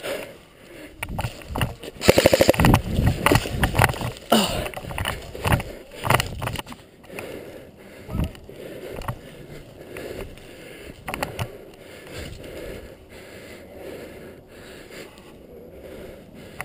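Rustling and knocking of a player moving with gear close to the microphone. About two seconds in there is a brief, very rapid burst of clicks, and the noise settles into steadier, quieter scraping after about seven seconds.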